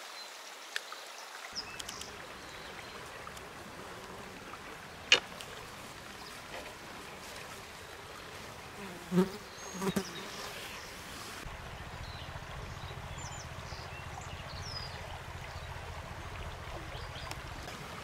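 Quiet ambience beside a shallow forest stream, with a faint steady wash of flowing water. An insect buzzes close by from about two-thirds of the way in. A single sharp click about five seconds in is the loudest sound, and two soft low thumps follow around nine and ten seconds.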